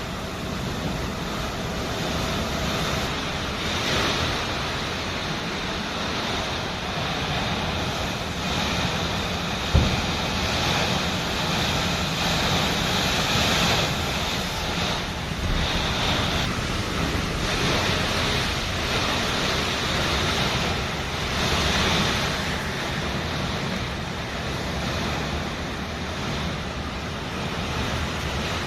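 Summer storm: strong wind rushing in gusts that swell and ease every few seconds, with wind rumbling on the microphone. A single sharp knock sounds about ten seconds in.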